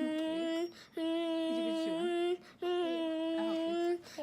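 A voice holding one steady high note in a long 'oooo', three times with short breaks between.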